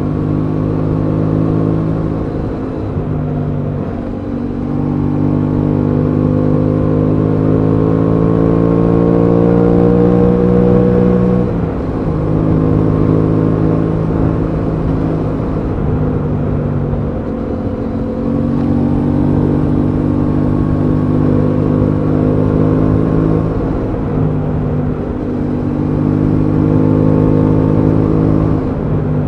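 Aprilia Tuono 660's parallel-twin engine running under way. Its note rises steadily under acceleration through the first ten seconds or so, then drops sharply. There are several brief breaks in the note as the throttle is rolled off and gears are changed.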